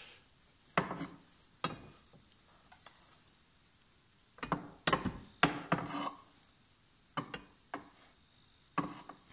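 A stick scraping and knocking against a tractor cab as it prods and drags a dry-grass squirrel nest out from behind a roof light. There are a handful of short, sharp scrapes and knocks, most of them bunched near the middle.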